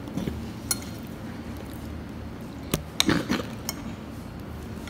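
A metal fork clinking and scraping against a plate a few times as a piece of cake is cut and picked at.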